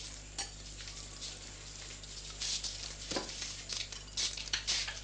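Soft, irregular rustling and scuffing with a few light clicks.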